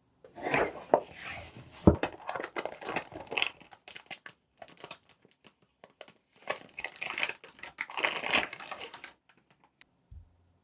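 Packaging crinkling and rustling as PC parts are handled and unwrapped, in two spells with a break between them, and a sharp knock about two seconds in.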